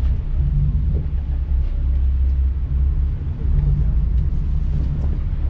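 A tour boat's engines running with a steady low rumble.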